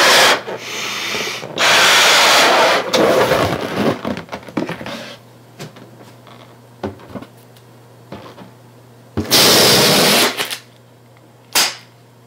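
A latex balloon blown up by mouth in several long breaths, with the rubber handled and rubbed, then another loud rush of air about nine seconds in and a short, sharp burst near the end as the balloon pops and shrinks tight onto a mobile phone.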